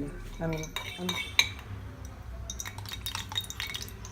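A metal spoon clinking and scraping against a cooking pan in a run of short, irregular strikes, the sound of stirring food in the pan. It grows busier about halfway through.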